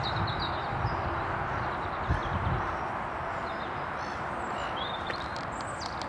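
Small songbirds chirping in short, high, scattered calls over a steady outdoor background hiss, with a couple of low bumps about two seconds in.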